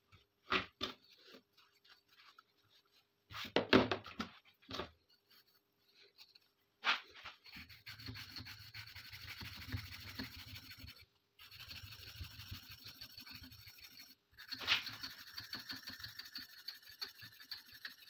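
A few light knocks of small metal parts on the bench, then rapid back-and-forth scraping as a small pistol part is scrubbed of rust by hand with a wire brush, in three stretches of several seconds each.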